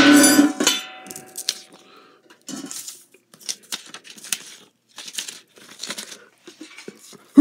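A loud shout cuts off just after the start, leaving a faint ringing tone for about a second and a half. Then come scattered quiet rustles and light clicks of handling, paper and small objects being moved about.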